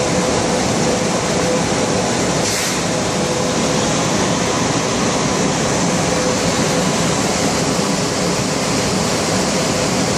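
Screening plant machinery and its centrifugal dust extraction fan running with the extraction system on: a loud, steady rushing noise with a faint steady hum under it, and a short hiss about two and a half seconds in.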